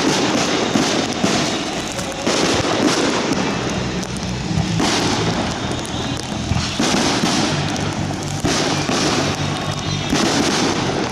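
Fireworks display: aerial shells bursting and crackling in quick, continuous succession, with music playing underneath.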